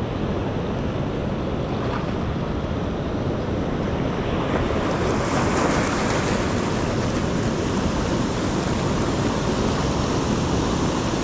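Ocean surf washing in over shoreline rocks: a steady rush of water and foam that swells about four and a half seconds in.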